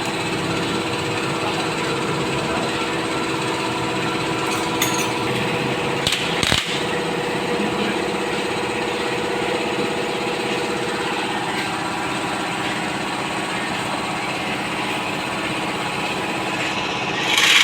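Bajaj CT150 motorcycle's single-cylinder engine running steadily just after its overhaul, with a brief click about six seconds in and a short louder swell near the end.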